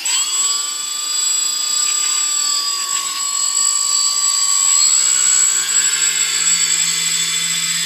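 A quadcopter's brushless outrunner motors starting the moment it is armed and spinning at idle without propellers: a steady, high-pitched electric whine made of several tones. A low hum joins about five seconds in.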